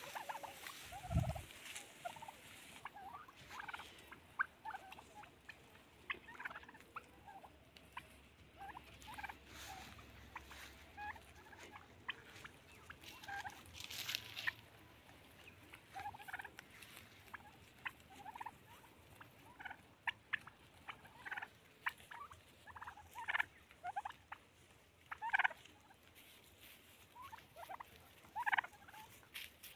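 Domestic turkeys calling: many short calls scattered throughout, a few at a time. A low thump comes about a second in.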